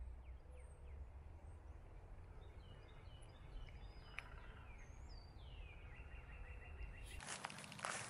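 Faint woodland ambience with a low rumble and footsteps, and a small bird calling a quick series of short high chirps and a down-slurred note in the middle. Background music comes in near the end.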